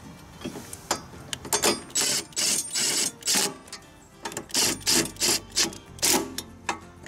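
Cordless impact driver tightening a rotary mower's blade bolts in several short hammering bursts.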